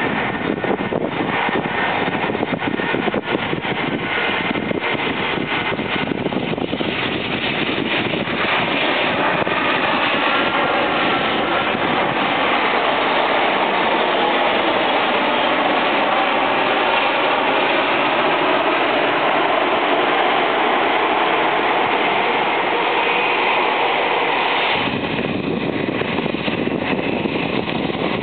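Airbus A319 jet airliner landing: loud, steady jet engine noise with a whine that falls in pitch as the aircraft passes. About 25 s in the sound changes abruptly and a deeper rumble comes in.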